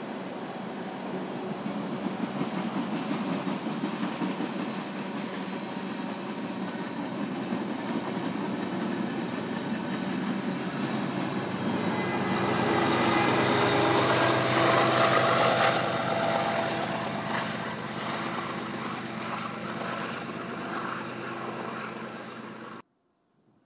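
BNSF manifest freight train rolling past, a steady rumble of wheels and cars on the rail. About halfway through it grows louder with a whine of steady tones that swells and fades, and the sound cuts off suddenly near the end.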